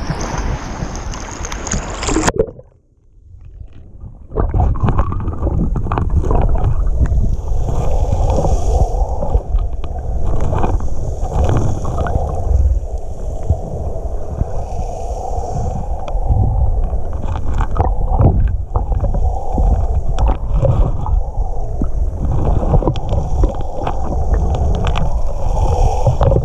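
An action camera taken underwater: surface water and wind noise cuts off suddenly after about two seconds, then comes a muffled underwater rumble and gurgling, with scattered clicks and knocks as the camera moves over a cobble lake bed.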